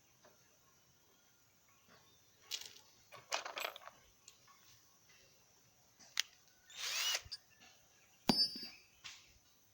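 Power drill run in short trigger bursts, three or so, with a sharp metallic knock that rings briefly near the end, typical of driving screws to fix a mortice lock into a door.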